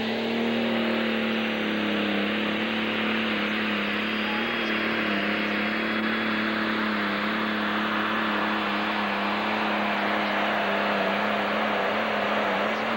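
Modified open-class pulling tractor engine running flat out as it drags the weight sled down the track: a steady engine note under a dense blare of exhaust noise, falling away abruptly right at the end.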